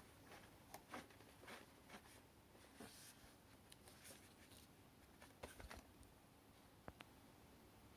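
Near silence with faint scattered clicks and short light rubbing sounds of something being handled, the sharpest click about seven seconds in.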